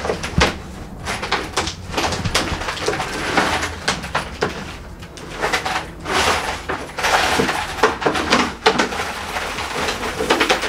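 Coins clinking and paper banknotes rustling as a large plastic jug of savings is tipped out and the money is pulled loose by hand, in many irregular bursts.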